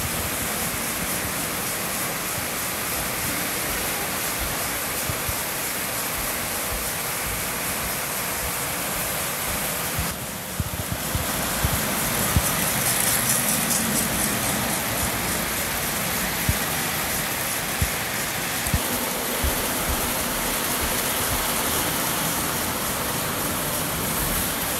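O gauge model trains, among them a Lionel 2-4-0 steam locomotive, running on three-rail track: a steady whir and rumble of wheels and motors, with scattered clicks as the wheels cross rail joints.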